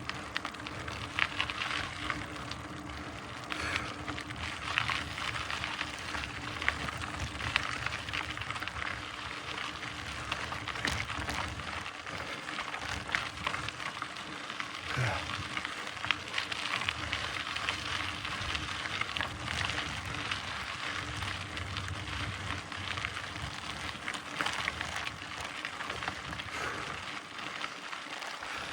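Mountain bike tyres crackling and crunching over loose dirt and gravel on a slow, steady climb, with many small ticks and pops from the trail surface.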